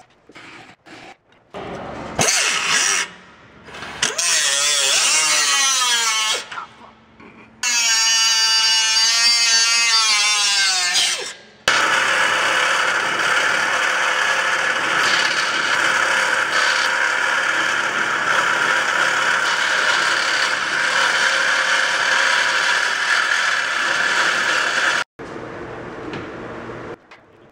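Power tool running in short bursts, its pitch falling twice as it comes under load, then a long steady run that cuts off suddenly near the end.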